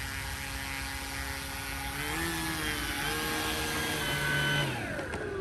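Electric motor and 15x7 Xoar wooden propeller of an E-flite Carbon Cub SS 2.1m RC airplane, its whine stepping up and down in pitch as the throttle changes, then winding down in a falling glide near the end.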